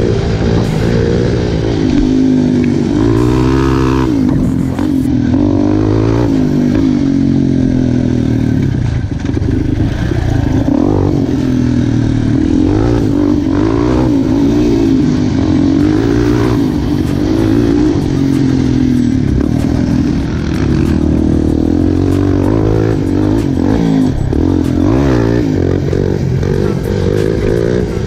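Yamaha Raptor quad's single-cylinder engine running through an aftermarket full exhaust, revving up and down, its pitch repeatedly rising and falling.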